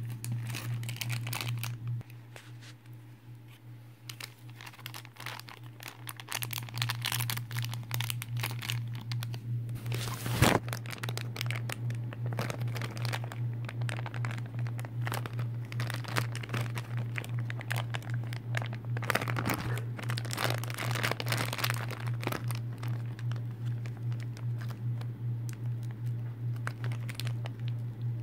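Plastic toy packaging crinkling and rustling as it is handled and unwrapped, with one sharp knock about ten seconds in. A steady low hum runs underneath.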